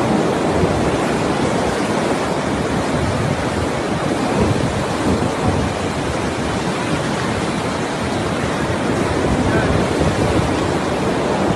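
Floodwater of a swollen mountain river rushing past in a steady, dense noise, with wind buffeting the microphone.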